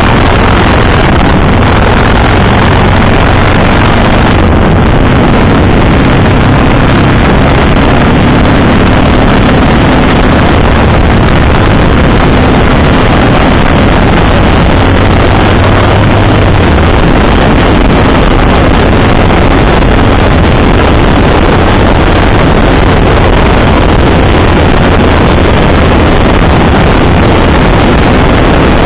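Motorcycle engine running at steady road speed, buried under loud wind rushing over the microphone. The low engine note changes a little over halfway through.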